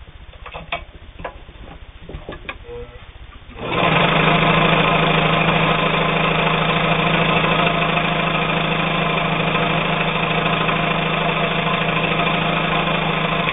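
Brother 1112A steel-geared sewing machine running at a steady high speed as it stitches through two layers of heavy denim. It starts about three and a half seconds in and stops abruptly at the end. Before it, a few light clicks and knocks of handling.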